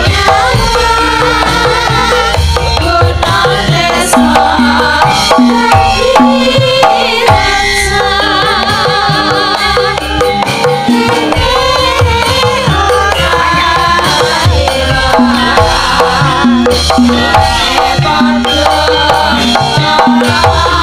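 Javanese gamelan music with female sinden voices singing with a wavering vibrato, over repeated hand-drum strokes from the kendang.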